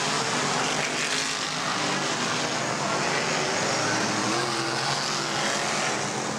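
Dirt modified race cars' engines running as they circle a dirt oval, a steady engine noise with no break.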